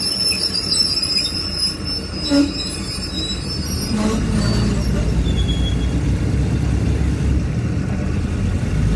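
Passenger train's steel wheels squealing high and thin against the rails, with a brief knock about two and a half seconds in. About four seconds in the squeal fades and a louder, steady low rumble of the running train takes over.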